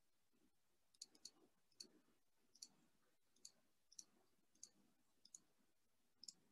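Faint computer mouse clicks, about nine short ticks at uneven intervals of roughly half a second to a second, as slides are clicked through and a right-click menu is opened.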